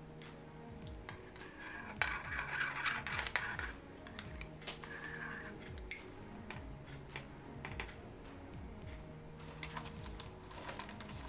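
Light clinks and clatter of small hard objects being handled, in scattered bursts, over soft background music.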